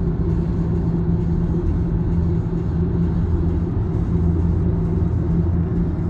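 Steady low rumble of tyre and road noise heard inside the cabin of a Nissan Leaf ZE0 electric car cruising at about 78 km/h on cruise control, with a low steady hum.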